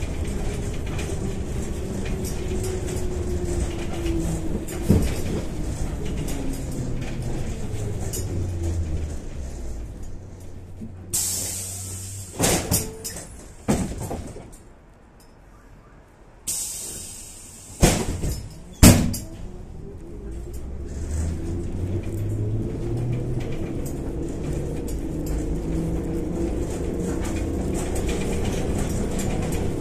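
Kyiv-12.03 trolleybus heard from inside the cabin: the traction motor's whine falls in pitch as the bus slows to a halt. While it stands there are two sharp bursts of air hiss and several clunks. About twenty seconds in, the whine rises again as it pulls away.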